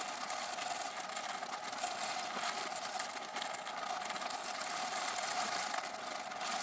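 Stainless-steel toothbrush scrubbing around the oxidized contact track of a VCR's rotary encoder switch: a steady scratching of the bristles on the metal contacts.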